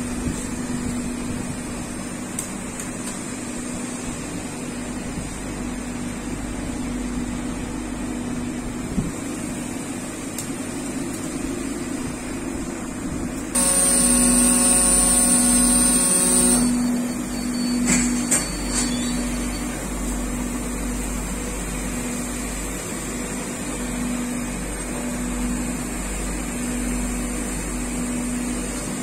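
Steady hum of PCB processing machinery, with a low tone that pulses on and off. About halfway through, a louder noise with a hiss and a tone runs for about three seconds and then stops, followed by a few light clicks.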